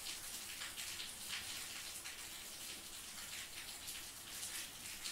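Faint, steady hiss of room tone and microphone noise, with a few faint ticks scattered through it.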